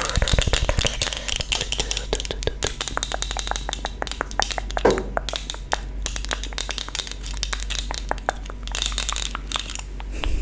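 ASMR mouth sounds close to the microphone: a fast, dense run of small clicks and pops with no words.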